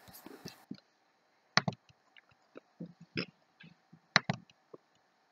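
Computer mouse clicking a few times, several of the clicks in quick pairs, with quiet room tone between.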